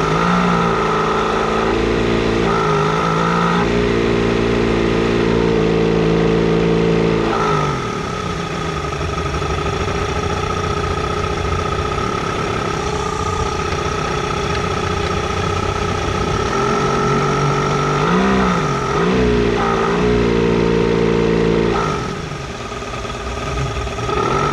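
1985 Mercury 90 hp two-stroke outboard running in gear under load, its propeller churning water, with engine speed rising and falling several times and dropping about seven seconds in and again near the end. It is dying under the load, which the owner puts down to a fuel mixture issue.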